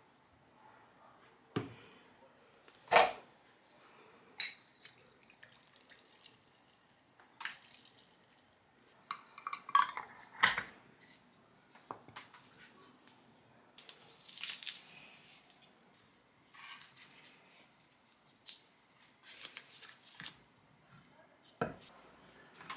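Kitchen handling sounds of a glass jar and a spoon: a series of separate clinks and knocks, the loudest about three seconds in, with a few short rustles later. This is while salt is spooned into a jar of perilla leaves in brine.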